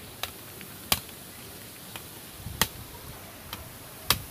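A blunt gulok (Filipino machete) chopping at the end of a green bamboo pole rested on a rock, sharpening it to a point: sharp, separate chops, three loud ones about a second and a half apart with a few lighter strokes between.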